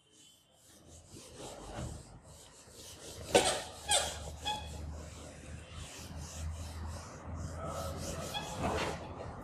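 An eraser rubbed back and forth across a whiteboard, wiping off marker writing, with a few sharper, louder strokes about three and a half and four seconds in.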